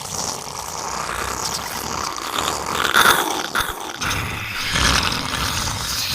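Designed horror sound effect of a sickly demonic alien ambience: a continuous, gritty, rasping noise texture that keeps shifting without settling into a rhythm, swelling to its loudest about three seconds in.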